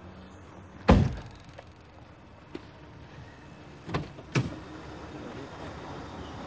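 A car door slams shut with a loud thunk about a second in, and two lighter thunks follow half a second apart about three seconds later. A low steady rumble builds near the end.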